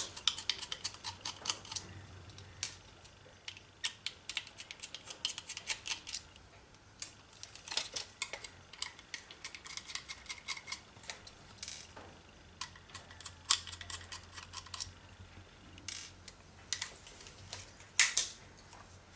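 Small screwdriver and screws clicking and tapping against a laptop hard drive and its caddy as the drive's screws are undone: a long run of light, irregular clicks, some in quick bursts.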